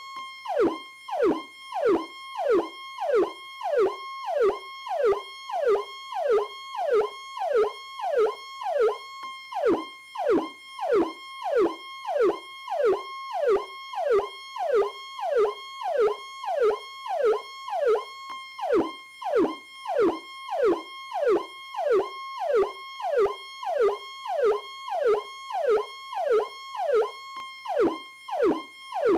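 PowerCall electronic police siren: a rapidly repeating cycle in which the tone drops sharply in pitch about twice a second, over a steady higher tone.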